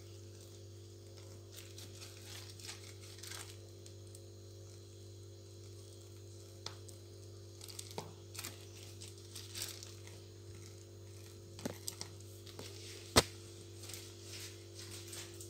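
Plastic piping bag crinkling and rustling faintly as it is squeezed to pipe whipped cream, over a steady low hum. One sharp click near the end.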